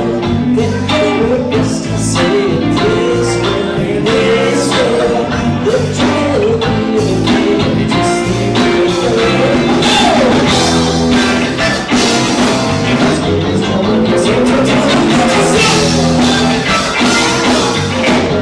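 Live rock band playing loudly: electric guitars, bass, drum kit and keyboard, with a singer's lead vocal over them.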